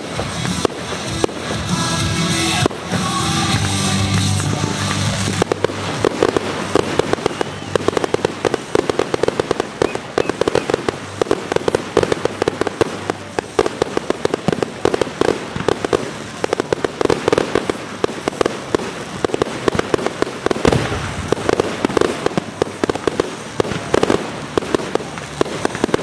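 Fireworks display with music playing over scattered bangs for the first few seconds. From about five seconds in, the fireworks turn into a dense, continuous barrage of rapid crackling bangs.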